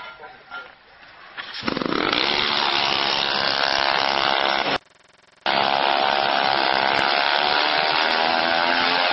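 Small moped engine revving up about one and a half seconds in, then running steadily at high revs with a buzzing note. The sound cuts out for under a second midway, then carries on.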